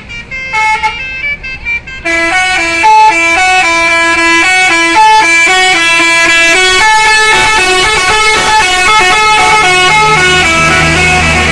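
Basuri 'telolet' multi-tone bus horns playing a tune: a few short toots, then from about two seconds in a loud, continuous melody of quickly changing notes. A low rumble joins near the end.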